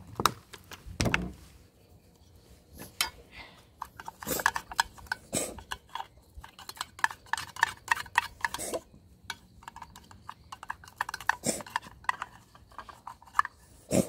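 Dry cat kibble clattering: irregular clicks and clinks of the pellets rattling against a plastic tub and bowls as it is handled.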